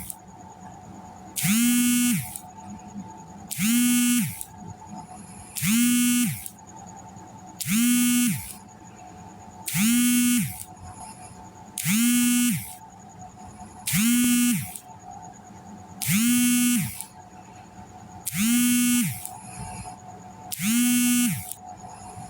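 A person snoring in an even rhythm, one buzzing snore about every two seconds. Each snore is a steady tone under a second long that bends down in pitch as it ends, and every one sounds alike.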